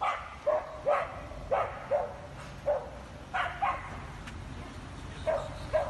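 Husky yelping and barking in short, sharp cries, about ten of them, while it is held up by a chain around its neck. The cries come quickly at first, then pause, and two more follow near the end.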